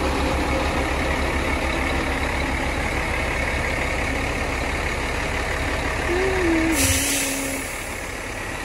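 Concrete pump truck's diesel engine running under load with a steady low drone. About seven seconds in the drone drops away and a burst of air hiss sounds for about a second.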